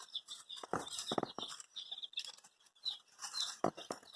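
Baby chicks peeping in short, high chirps, with a few sharp taps and knocks in between.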